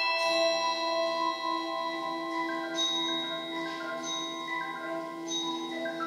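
Percussion ensemble of marimbas and other mallet keyboard instruments playing a slow passage: sustained ringing chords, a low chord coming in just after the start, and a high bell-like note repeating about every second and a half.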